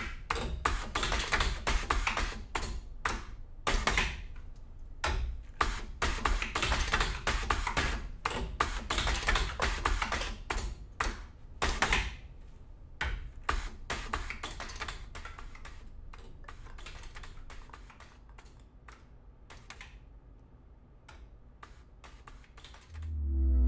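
Aluminium tube-closing machine at work, with rapid mechanical clicks and clacks as tubes are handled and clamped. The clicking is dense at first, thins out after about twelve seconds and fades near the end.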